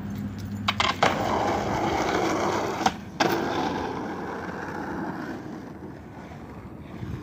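Skateboard wheels rolling over rough street asphalt, a steady gritty rumble that fades slowly. About a second in come a few sharp clacks as the board is dropped and ridden off.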